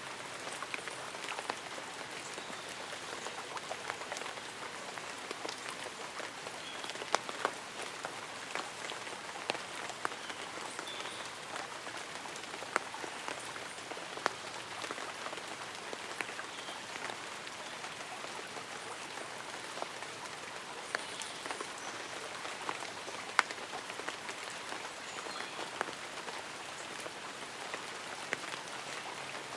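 Light rain: a steady hiss with many single drops tapping on leaves and an umbrella. A few faint, short high chirps come through now and then.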